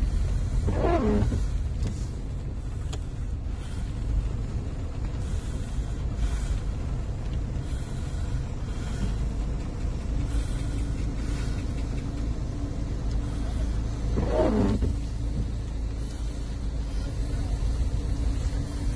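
Steady low rumble inside a car's cabin in slow stop-and-go traffic: engine and road noise, with a faint steady hum in the later part. Two brief wavering pitched sounds cut through, one about a second in and one about fourteen seconds in.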